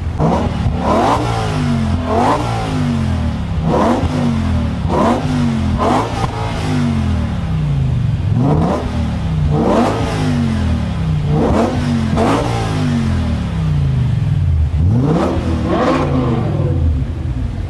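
BMW E61 M5 Touring's 5.0-litre V10 through a KKS race exhaust, free-revved again and again while standing: about a dozen quick throttle blips, each rising sharply and falling back to idle.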